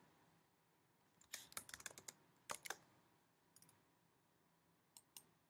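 Faint computer keyboard typing: a quick run of keystrokes about a second in and two more around two and a half seconds. A few single clicks follow near the end.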